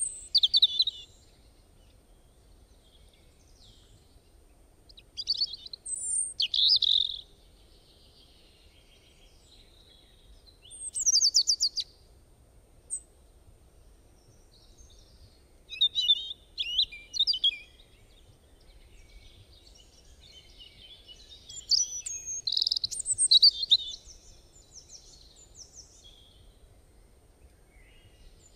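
A bird chirping and singing in short high phrases, one to two seconds each, recurring about every five or six seconds, with a quick trill in one of them.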